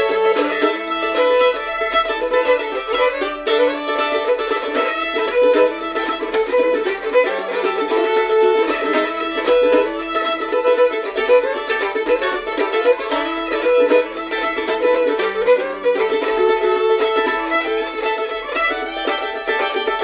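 Fiddle and mandolin playing an old-time fiddle tune together, a fast, continuous melody.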